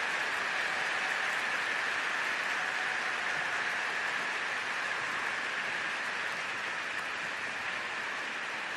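Large arena crowd applauding steadily, slowly dying down.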